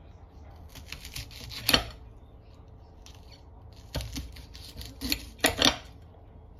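A small kitchen knife slicing crisp lettuce leaves on a ceramic plate: two runs of quick crunching cuts with the blade clicking on the plate, about a second in and again from about four seconds in.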